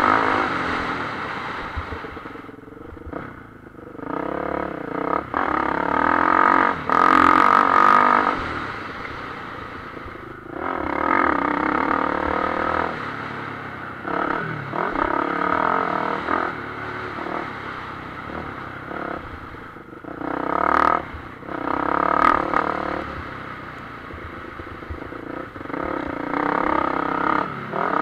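Motocross bike engine heard from the rider's own machine, its revs rising and falling again and again as the throttle is opened and shut, with several loud surges and brief lulls in between.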